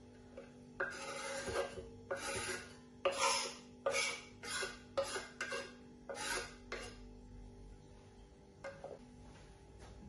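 Kitchen knife scraping chopped parsley off a wooden cutting board into a glass bowl: a run of about nine short rasping scrapes, getting shorter and quicker toward the end, then a couple of faint ticks.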